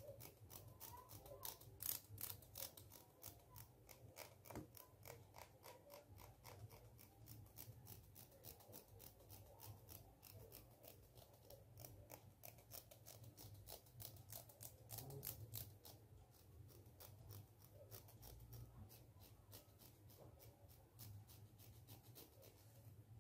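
Teeth of a plastic comb scratched close to a microphone: a quick, steady run of faint dry clicks, several a second, over a low electrical hum.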